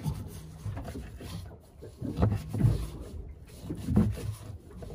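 Knife cutting through raw false albacore meat, scraping and rubbing, with a few dull knocks about two seconds in and again near four seconds.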